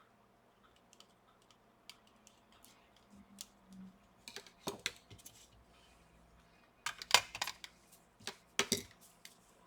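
Light clicks and taps of small plastic and metal laptop parts being handled and fitted inside an open laptop, a cable and cooling fan among them. Scattered single ticks at first, then clusters of louder clicks about seven seconds in and again shortly before the end.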